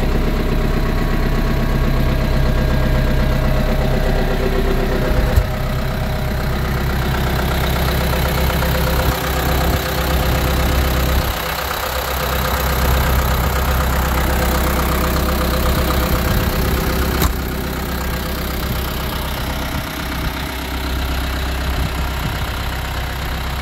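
Ford 7610 tractor's four-cylinder diesel engine idling steadily. A sharp knock comes about five seconds in and another near seventeen seconds.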